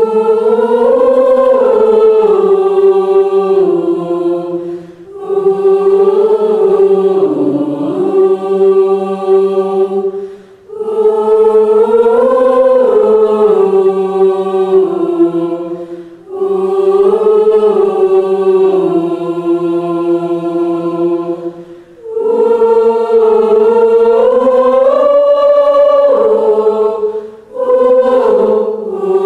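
A choir singing a slow, sustained hymn-like piece in long held phrases of about five seconds each, with brief breaks between phrases.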